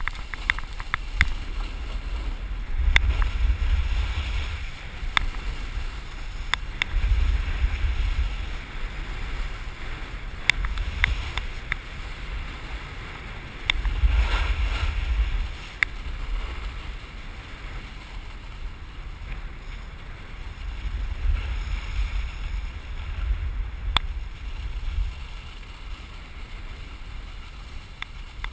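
Wind buffeting a helmet camera's microphone in repeated rumbling surges, over the hiss of a snowboard sliding and carving on packed snow, with scattered sharp clicks.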